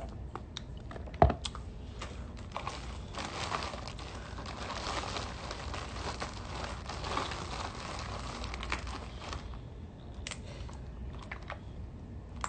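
Crackling and crinkling as seafood is handled and picked apart by hand, with scattered clicks. A sharp knock about a second in is the loudest sound, and the crackling is densest in the middle.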